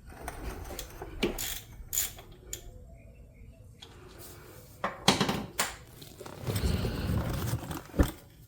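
Scattered metallic clinks and knocks of hand tools being handled, the loudest about five seconds in and just before the end, with a stretch of rustling in between.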